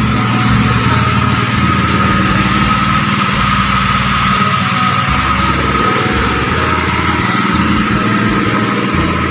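A 1987 Suzuki Carry 1.0 pickup's small four-cylinder engine idling steadily, with a steady high whine above the engine note.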